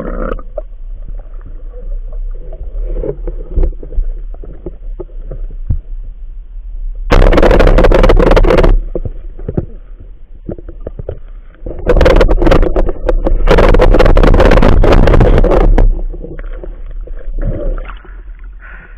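Water noise heard through an underwater camera housing: a low steady rumble, broken by two loud stretches of rushing, splashing water, one about seven seconds in lasting under two seconds and a longer one of about four seconds near the middle.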